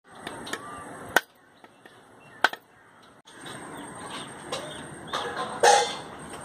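A machete blade striking a husked coconut's hard shell: two sharp knocks, then a louder crack near the end as the shell splits into halves. Birds chirp in the background.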